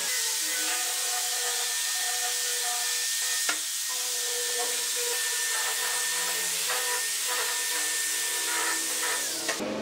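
Angle grinder fitted with a sanding drum running against the curved edge of a wooden strip: a steady motor whine over the hiss of abrasive on wood. One sharp click about three and a half seconds in, and the sound cuts off abruptly near the end.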